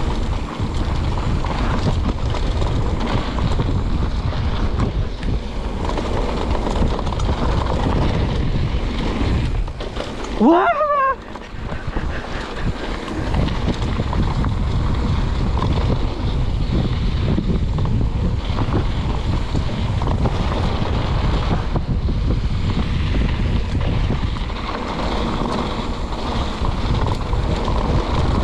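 Wind buffeting a bike-mounted action camera's microphone over the rumble and rattle of a Specialized Stumpjumper Evo mountain bike rolling fast down a dirt trail. About ten seconds in, a short rising, wavering squeal comes with a loud spike, then the noise dips briefly.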